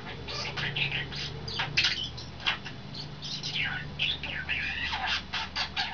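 Pet European starling singing: a rapid, unbroken string of short chirps, clicks and whistled notes, some sliding up or down in pitch.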